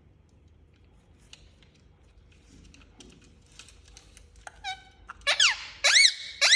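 Indian ringneck parakeet giving a run of about four loud, shrill squawks, each gliding up and down in pitch, beginning about four and a half seconds in, after a few seconds of faint clicks and scratching.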